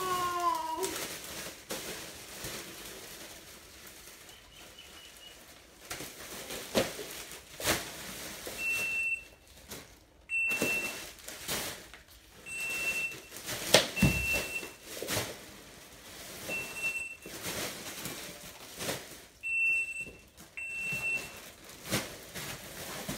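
Handheld parcel scanner giving short single beeps every second or two as courier satchels are scanned one after another. Plastic satchels rustle and crackle as they are handled, with a heavier thump of a parcel landing about halfway through.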